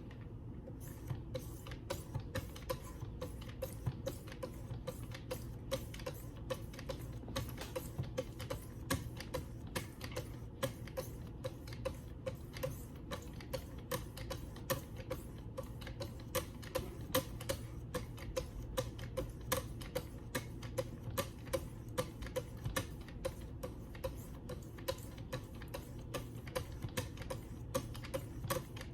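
Sharpening stones of a Wicked Edge guided sharpener stroking along the edge of a D2 steel knife blade, a rapid, even run of scraping ticks at about three strokes a second.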